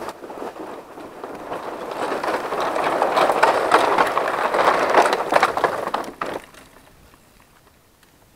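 Mountain bike tyres rolling over a wooden plank bridge: a fast, loud clatter of knocking boards that builds and then cuts off sharply about six seconds in as the bike comes off onto the dirt.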